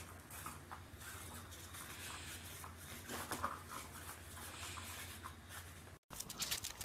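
Scratching and rustling from a battery-powered cat toy's wand sweeping under its fabric cover, over a low steady hum. Near the end a few sharp clicks.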